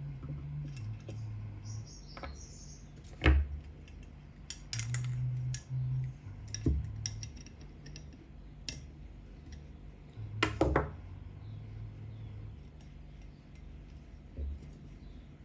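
Small metal carburetor parts being handled on a workbench: scattered light clinks and taps, with a sharp knock about three seconds in and a cluster of knocks about ten and a half seconds in.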